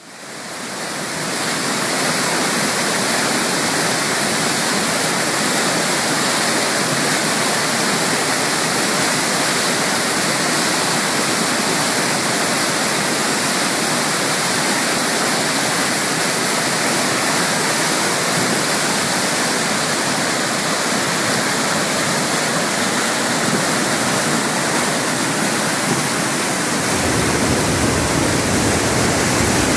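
Cottonwood Falls in spring flood, a waterfall swollen with muddy snowmelt, rushing with a loud, steady, full-range noise of pounding water and spray. It fades in over the first second or two, and a deeper low rumble joins near the end.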